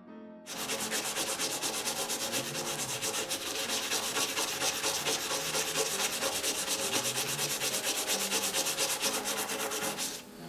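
Manual toothbrush scrubbing a copper coin with blue paste, in rapid back-and-forth strokes. It starts about half a second in and stops just before the end.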